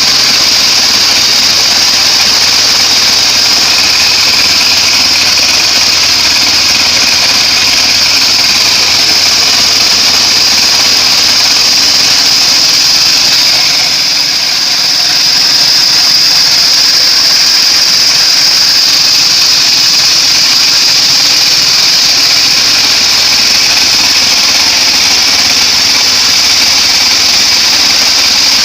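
Homemade band sawmill running, its blade sawing through an acacia log with a steady, loud, high-pitched whine over the machine's drone. The level dips briefly about halfway through.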